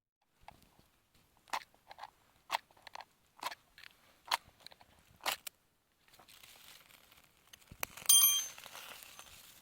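Sharp crunching clicks about once a second for several seconds, then a single loud metallic clink that rings briefly.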